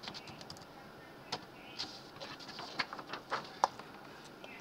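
Light clicks and taps of a computer keyboard and mouse: a quick run of faint key taps at the start, then about half a dozen sharper, irregularly spaced clicks.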